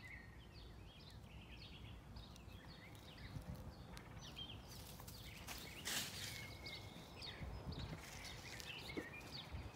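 Birds chirping, many short hooked calls repeating through the whole stretch, over a steady low wind rumble. A few brief crackling rustles stand out around the middle.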